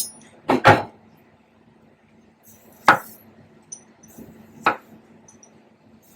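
A few short, sharp clinks and knocks of hard kitchen tools being handled and set down: a pair just after the start, then single ones about three and five seconds in.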